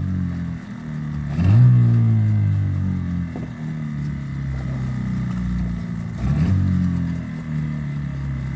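Tohatsu outboard motor running at idle, its pitch rising briefly twice, about a second and a half in and again about six seconds in, as it revs up and settles back.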